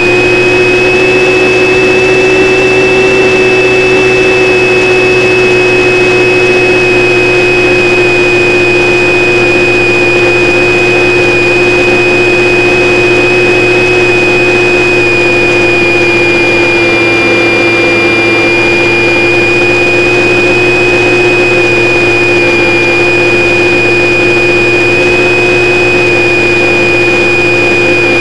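Motor and propeller of a radio-controlled plane in steady cruise, heard close up from a camera on board: a loud, even drone with a high whine above it, holding nearly the same pitch throughout.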